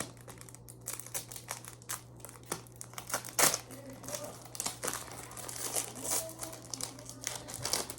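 Foil Pokémon card booster pack being crinkled and torn open by hand, a rapid run of irregular crackles and rustles with the loudest rip a little past three seconds in.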